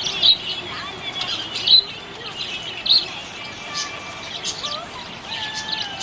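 Budgie chirping and warbling: a run of quick high chirps and short whistled glides, with three louder sharp chirps near the start, at about two seconds and at about three seconds.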